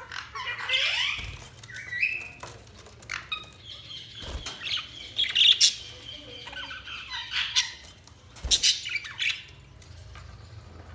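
Budgerigars chirping and squawking: a string of short chirps and quick rising and falling notes with clicks mixed in, thinning out over the last couple of seconds.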